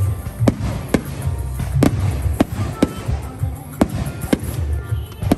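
Fireworks display: aerial shells going off in a rapid series of sharp bangs, roughly two a second, over a continuous low rumble.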